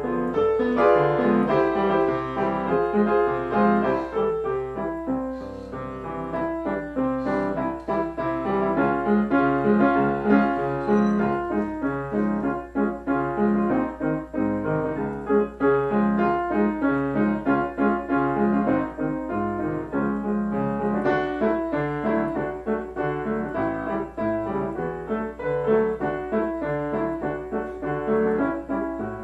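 Solo piano playing a medley with both hands, a continuous stream of notes and chords, over a faint steady low hum.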